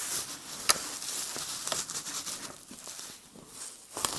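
Hair being brushed and handled close to the microphone: a close rustling and crackling with a few sharper strokes.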